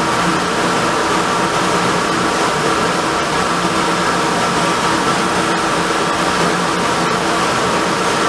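Variable-speed wood lathe running steadily, a constant machine whir with a faint steady whine.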